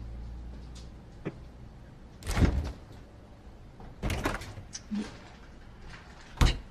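A door being moved and shut: a sliding rumble and knocks, with a sharp thud near the end.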